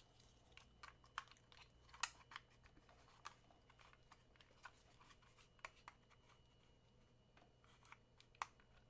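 Faint, irregular clicks and taps of a small plastic network cable tester and its remote being handled, over a faint low hum.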